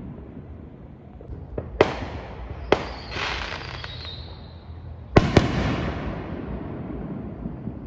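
Aerial fireworks bursting overhead: about five sharp bangs, the loudest a double bang about five seconds in, each burst followed by crackling. A high whistle falls slightly about three to four seconds in.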